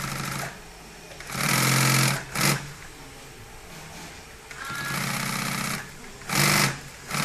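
Pfaff industrial sewing machine stitching in short runs, starting and stopping about five times, each run a second or less, as material is guided under the needle.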